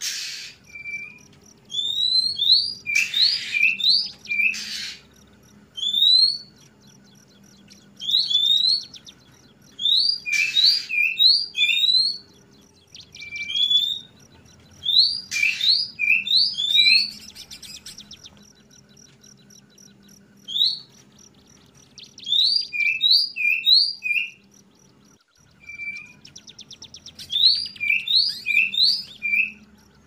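Juvenile (trotol) oriental magpie-robin calling its 'wik-plong' calls. Short bouts of quick rising whistled notes with lower clipped notes and a few harsh rasping calls, repeating every couple of seconds.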